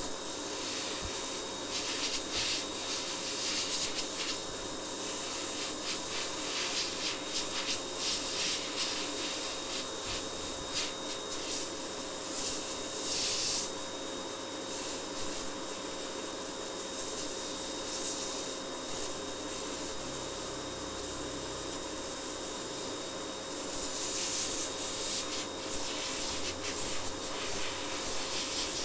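A hand tool rubbed and scraped in repeated quick strokes over the wire mesh of a cylindrical motorcycle air filter, cleaning dirt off the element.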